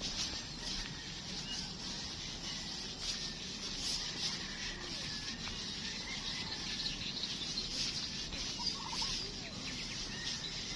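Steady outdoor background hiss with faint, short animal calls now and then, a few of them near the end.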